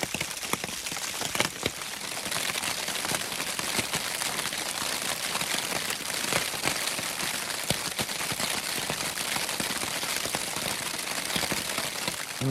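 Steady rain pitter-patter on a Dyneema tarp pitched over a hammock, heard from underneath, with many single drops ticking sharply on the fabric over an even hiss.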